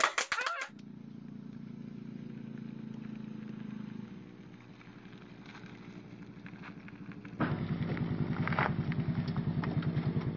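Small step-through motorcycle's engine running at low speed. It grows louder and throbs steadily as the bike rides up and stops close by. A brief noisy clatter comes at the very start.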